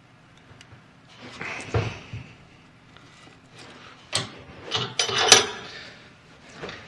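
Metal parts and tools being handled on a steel workbench: a rustle with a dull knock early, then several sharp metallic clanks about four to five and a half seconds in, the loudest one ringing briefly.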